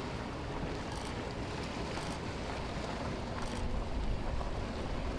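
Motor of a small aluminum workboat running steadily at low speed, a faint even hum under the wash of water along the hull, with wind buffeting the microphone.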